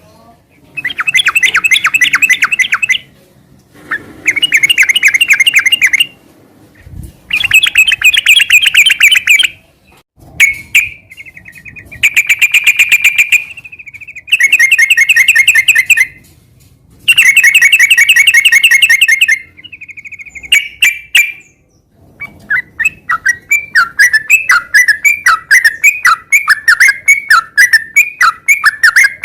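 Sooty-headed bulbul (trucukan) singing in loud bursts of fast chattering notes, each about two seconds long with short pauses between, then running on without a break in quick repeated notes over the last third.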